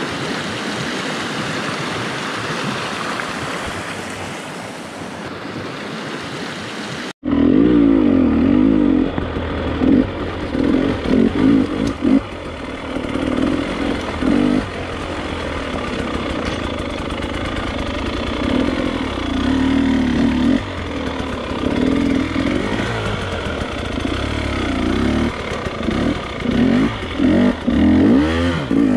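A rocky mountain creek rushing steadily for the first seven seconds. Then, after a sudden cut, a GasGas two-stroke dirt bike rides over rocky singletrack, its engine revving up and down again and again as the throttle is worked.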